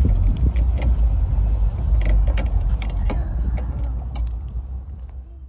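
Steady low rumble of background noise with scattered light clicks and knocks, fading away near the end.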